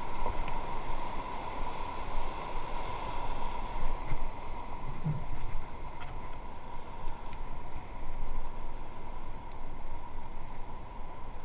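Steady rush of river water with wind buffeting the microphone from a raft on the rapids, under a thin steady high tone.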